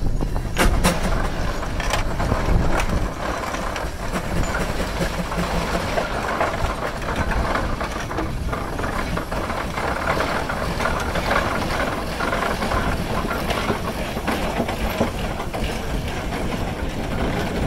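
1924 Minneapolis steam traction engine working under load on a short hill climb: a steady mechanical clatter of its running gear and exhaust, with a few sharp knocks about a second in.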